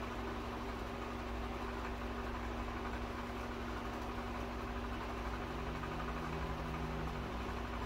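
Steady hum of an electric room fan running, with a constant low tone and a light hiss; a second, lower tone joins faintly for about two seconds past the middle.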